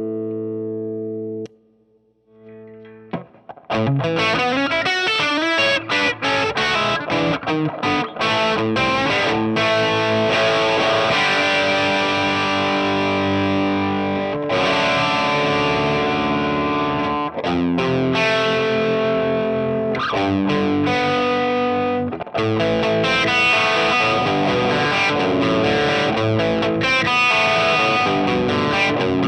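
Electric guitar played through a hand-wired Fender Deluxe Reverb Reissue tube amp, distorted by an overdrive pedal. A held chord is cut off about a second and a half in. After a short pause, continuous riffing and lead lines follow, with a few brief breaks.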